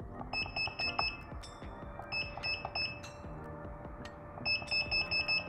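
A hot air rework station being switched on. Its blower runs with a steady airy hiss and a faint hum, and its control panel gives three runs of short, high beeps as its buttons are pressed to set the heat.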